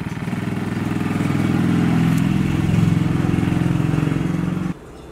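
An engine running close by, growing louder over a few seconds, then cut off abruptly near the end.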